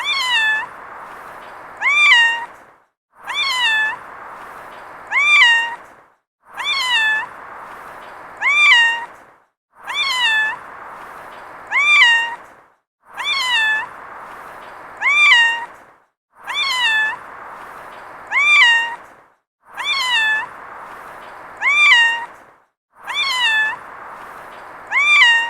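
Domestic cat meowing: short, high-pitched meows in pairs, about two seconds apart within each pair. The pair repeats about every three seconds as a loop, with a faint steady hiss under each pair and a brief silence between.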